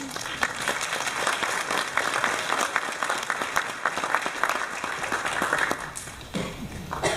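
Audience applauding, a dense patter of clapping that dies away about six seconds in.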